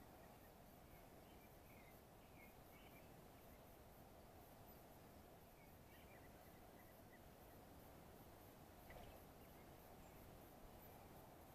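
Near silence: faint steady outdoor ambience with a few faint, short high bird chirps, and one brief soft knock about nine seconds in.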